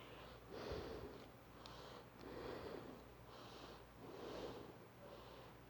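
Faint, soft breathing close to the microphone, four or five gentle breaths about a second apart.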